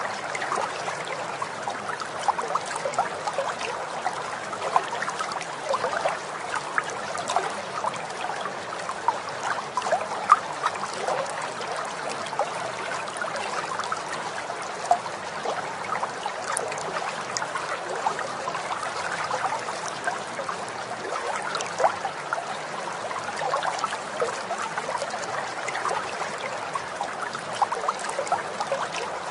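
Steady running water, like a babbling stream, with many small splashes and gurgles all the way through.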